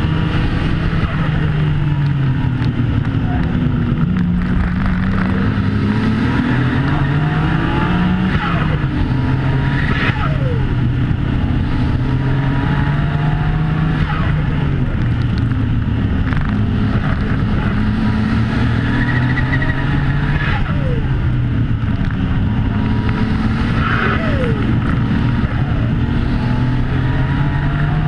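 1995 Nissan Skyline GT-R V-Spec's twin-turbo RB26DETT straight-six driven hard at racing speed. The engine note climbs and drops again and again through gear changes, braking and acceleration.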